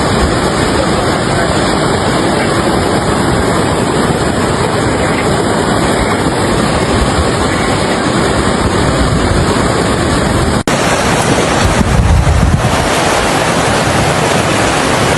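Loud, steady rush of fast-flowing river floodwater, with wind buffeting the microphone. A sharp break about ten and a half seconds in, after which the low wind rumble is heavier.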